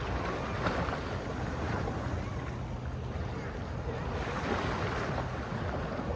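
Sea waves and surf, a steady rush, with wind on the microphone.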